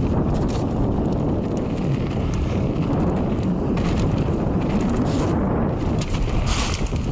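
Wind buffeting the camera microphone over the rumble of mountain bike tyres rolling on a wet gravel trail, with a scatter of small knocks and rattles from the bike over the bumps.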